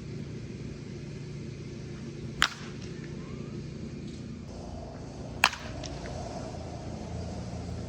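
Two sharp cracks of a Rawlings wooden bat hitting the ball, about three seconds apart, over a steady low hum.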